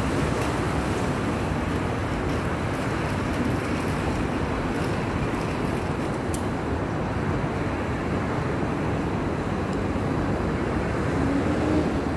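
Steady rush of road traffic noise, even and continuous, with no single vehicle standing out.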